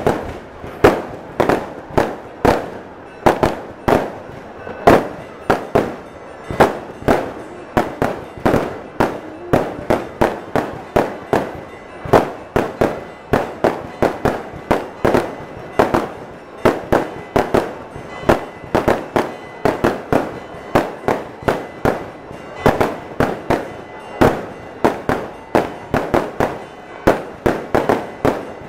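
An aerial fireworks display: a rapid, irregular string of sharp bangs and cracks, about two or three a second, each ringing out briefly.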